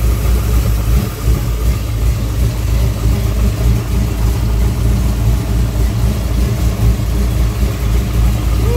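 Car engine idling steadily, with its newly fitted power steering pump and new serpentine belt running without popping.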